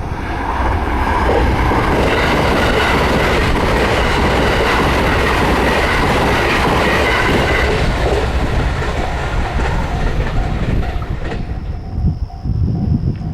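A train passing over a level crossing: the running noise of its wheels on the rails rises about half a second in, holds loud, and drops off sharply about eleven seconds in. The crossing's warning bell rings in an even on-off rhythm under it and is heard clearly again once the train has gone by.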